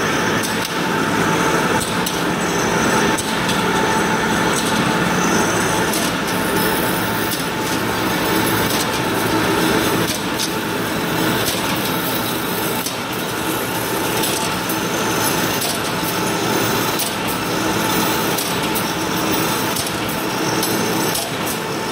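Rebar straightening and cutting machine running in line with a cold rolling mill, ribbed steel wire feeding through it: a steady loud mechanical din with frequent sharp clicks and knocks of metal on metal.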